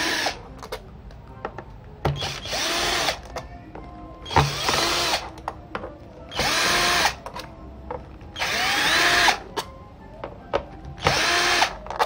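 Cordless drill/driver backing screws out of a plastic laptop bottom case in six short runs, each under a second, its motor whine rising at the start and falling at the end of each run. Small clicks and taps come between the runs.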